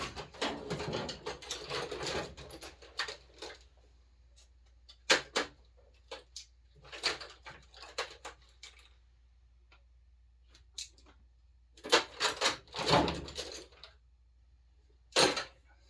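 Metal hand tools clinking and rattling against the chainsaw as a socket is worked onto the muffler bolts: short bursts of clicks and clatter with quiet gaps between, busiest at the start and again about twelve seconds in.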